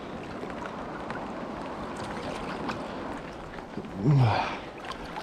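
Steady rushing of river water around a small boat, with a few faint ticks; a man's voice speaks briefly near the end.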